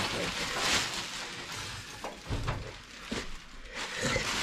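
Rustling and crinkling of plastic and cardboard packaging, with a few dull knocks, as the boxed top section of a tool chest is handled.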